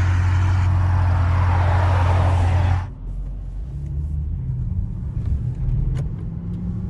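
Highway traffic rushing past with a steady low hum, cutting off abruptly about three seconds in. Then the low rumble of a car's engine and road noise heard from inside the moving car, with the engine note rising near the end as it accelerates.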